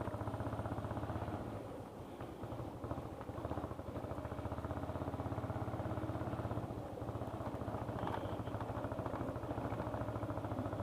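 Motorcycle engine running at low speed with a steady, fast pulse as the bike crawls over a badly broken road; it eases off briefly about two seconds in, then settles back.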